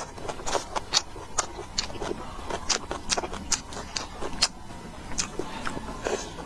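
Eating at close range: an irregular run of short clicks and crunches, about two or three a second, from biting, chewing and utensils on dishes.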